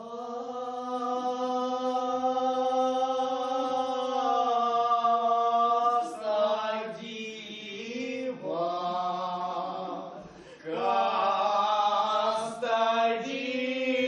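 Two men's voices singing a slow unaccompanied song in long held notes: the first note is held for about six seconds, then come shorter phrases with a brief break about ten seconds in.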